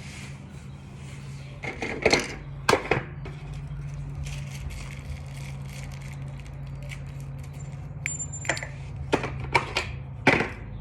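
Scattered clicks and rattles of small hard parts and packaging being handled, as when sorting through a doorbell's mounting screws, over a steady low hum. A short high beep sounds about eight seconds in.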